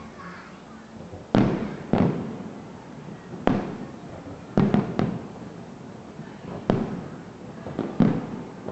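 Fireworks bursting in a series of sharp bangs, about seven at irregular intervals, each trailing off briefly.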